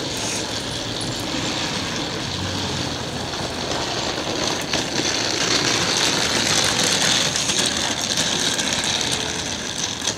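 Small hard wheels of a hard-shell rolling suitcase clattering over sidewalk pavement, growing louder as it passes close by about halfway through, over city street noise.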